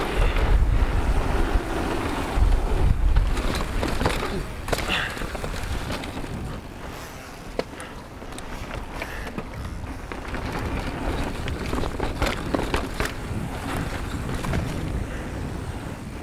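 Mountain bike rolling fast down a dirt trail: tyres running over gravel and rock, with the bike rattling and knocking over bumps. A heavy low rumble in the first few seconds.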